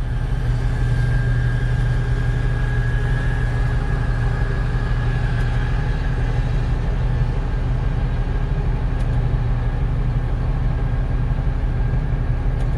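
International tractor engine running steadily, heard from inside the cab, with a thin high whine over it for the first half.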